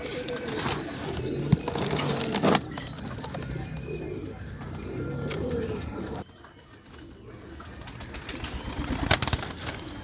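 Domestic pigeons cooing, low wavering calls over the first six seconds, then quieter. A few sharp knocks come through, the loudest about two and a half seconds in and near the end.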